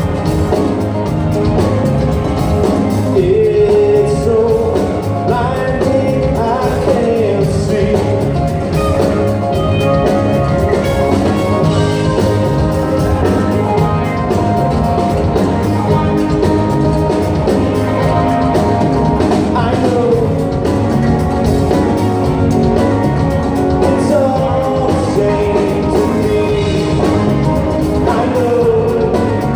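Live rock band playing with a lead vocal: electric and acoustic guitars, keyboards and drums over a steady beat.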